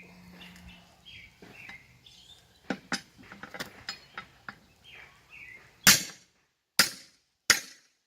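Birds chirping, then lighter clicks and four sharp metal strikes a little under a second apart near the end: blows on a military split rim's lock ring to knock it down and free it.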